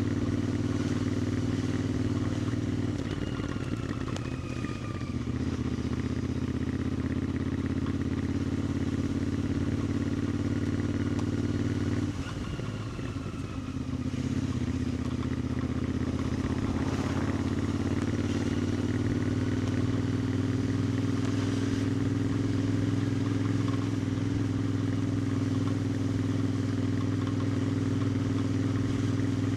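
2021 Royal Enfield Interceptor 650's parallel-twin engine and exhaust running while the bike cruises. The engine note dips twice, about three seconds in and again about twelve seconds in, then runs steadily again with a slight rise in pitch.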